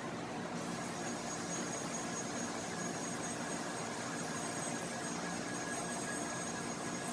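Electric shop fan running, a steady whir with a low, constant hum.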